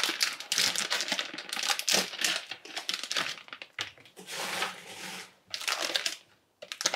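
Thin plastic food packet crinkling and rustling in the hands, in a run of quick crackles, with a short pause near the end.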